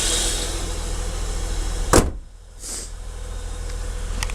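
Holden Commodore VT's 3.8 litre Ecotec V6 idling, with one loud, sharp thump about two seconds in.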